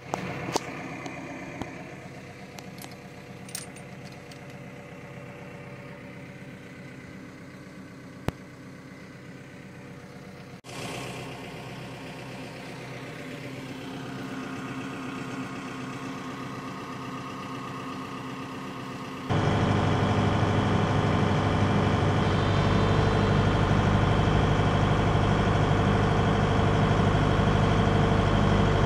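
John Deere 2054D excavator's diesel engine running steadily, getting a little louder after about ten seconds and then jumping much louder about two-thirds of the way through, as the machine is used to lift the swing motor out on a chain.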